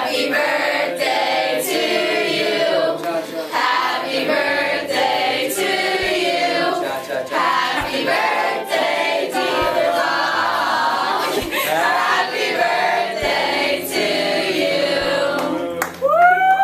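A group of teenagers singing together as a small choir of mixed voices. Near the end one voice gives a rising-and-falling whoop as the song finishes.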